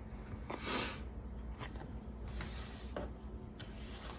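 Paper planner sticker sheets being handled and moved across a wooden tabletop: a soft swish of paper just under a second in, more faint paper rustle, and a few light taps.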